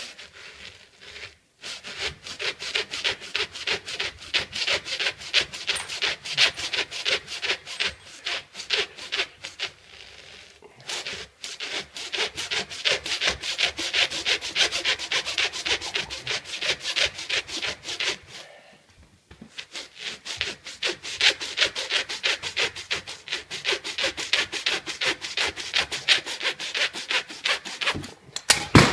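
A long blade sawing back and forth through a baseball, cutting into its tightly wound yarn. The strokes come quickly and steadily, several a second, with two short pauses about a third and two thirds of the way through.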